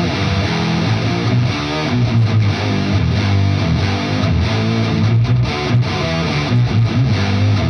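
Distorted electric guitar played continuously through an Electro-Harmonix Intelligent Harmony Machine pedal set to its octave pedal mode (mode 9), with the pedal's added octave voice sounding along with each played note.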